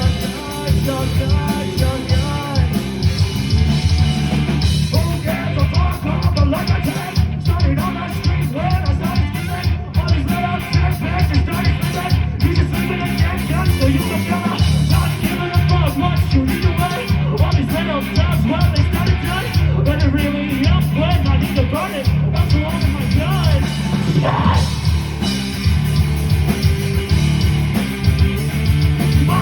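Rock music with a singing voice, playing continuously.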